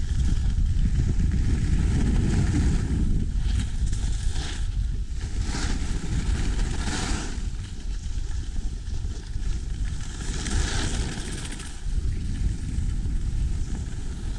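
Wind buffeting the microphone of a skier's action camera during a downhill run, a steady low rumble, with the hiss of skis scraping over hard-packed piste snow swelling several times in the turns.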